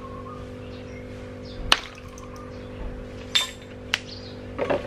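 Metal tablespoon and plastic bottle knocking against a stainless steel bowl while vinegar is measured and tipped into a neem-leaf insect spray mixture: one sharp clink about a second and a half in, then a few lighter taps near the end, over a steady low hum.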